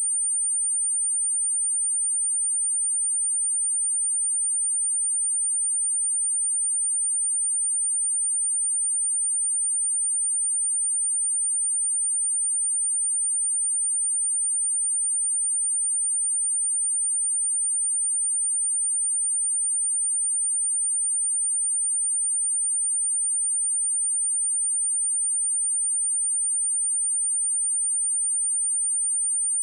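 A steady, unbroken 9005 Hz pure sine-wave test tone, a single high-pitched whistle-like note at constant level, used for speaker testing and for shaking water and dust out of speakers.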